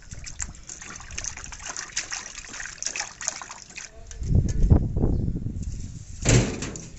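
Water sloshing and splashing as pieces of skinned fish are rinsed by hand in a steel plate. About four seconds in, the water is tipped out onto a concrete floor in a heavier gush, and there is a sharp knock near the end.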